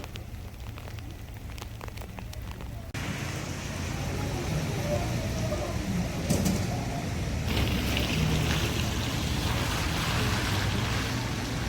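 Steady rain with scattered drops ticking, then, after a sudden cut about three seconds in, a louder, even hiss of heavy rain with faint voices in the background.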